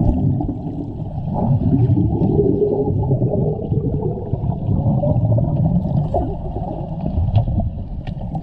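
Pool water heard through a submerged camera: a muffled, low churning and bubbling as swimmers move and blow bubbles around the lens.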